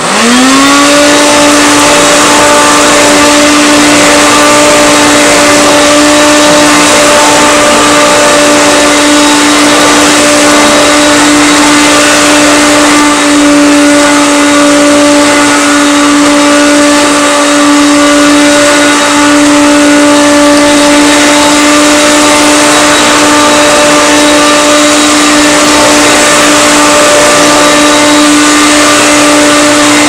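Hoover Concept Two Electronic upright vacuum cleaner switched on. Its motor spins up with a quick rising whine, then runs loud and steady at full speed, its electronic speed control bypassed. The owner thinks it could use a bearing cleaning or new carbon brushes.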